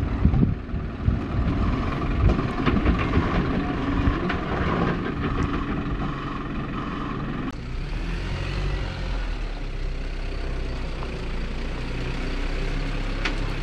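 Isuzu NPS 75-155 4x4 truck's four-cylinder turbo-diesel engine running at low revs as it crawls over a rutted dirt track. Gusty wind noise buffets the microphone in the first half. About halfway through the sound changes abruptly to a steadier low engine drone.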